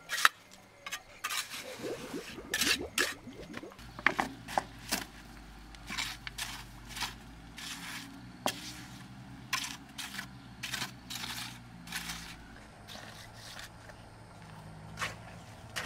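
Irregular scraping with many short clicks and knocks, with a faint steady low hum underneath from about four seconds in.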